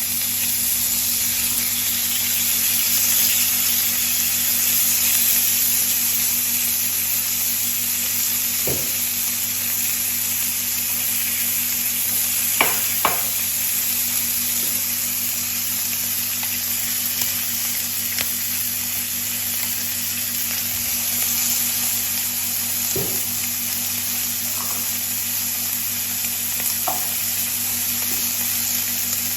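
Steak sizzling steadily on a very hot griddle pan, with a steady low hum underneath and a few short light knocks.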